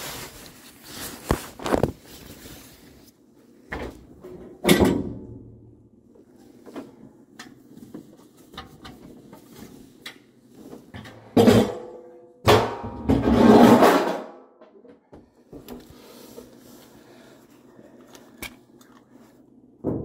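Handling and working noises: scattered knocks and bumps with rustling and scraping, separated by quieter stretches. The loudest is a scraping, rumbling stretch lasting about two seconds a little past the middle, just after a sharp knock.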